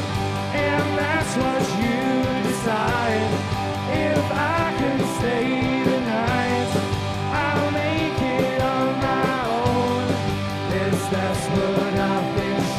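Indie pop-rock band playing: electric guitars, bass and drums, with a melodic line sliding up and down in pitch over the steady band.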